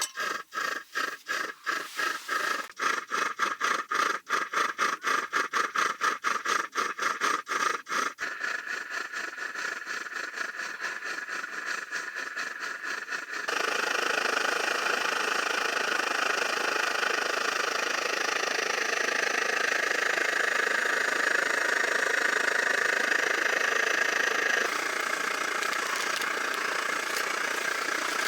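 Honda Cross Cub 110's single-cylinder engine being cranked on a near-freezing morning after refusing to start. It turns over in regular beats for about eight seconds, then catches and runs, going louder and steadier about thirteen seconds in.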